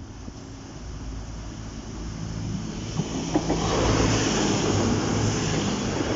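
Class 185 diesel multiple unit approaching: a low engine hum grows louder, then about halfway in a rising rush of wheel-on-rail noise with a few sharp clicks takes over as the train arrives.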